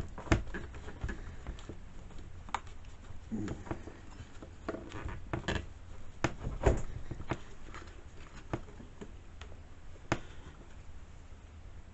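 Irregular clicks and knocks as hands work the fuel lines off a chainsaw carburetor and take the carburetor out.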